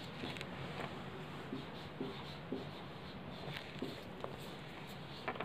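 Marker pen writing on a whiteboard: short, irregular strokes and taps over a steady background hiss.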